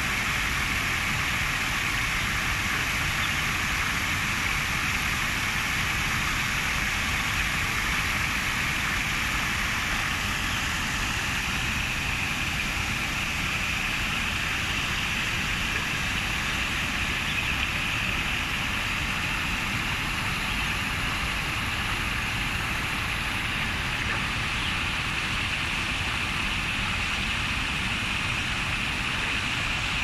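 A small stream bubbling and splashing steadily over rocks, an even rushing sound with no change in level.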